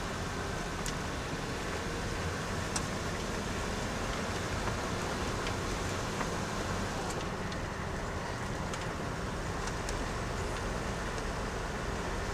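A car being driven: a steady engine drone under an even rush of tyre and road noise, with a few small ticks.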